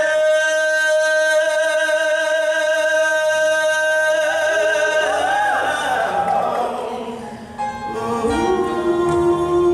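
Male solo vocalist singing into a microphone: he holds one long high note for about four seconds, breaks into a quick wavering run of notes, and then settles on another held note near the end.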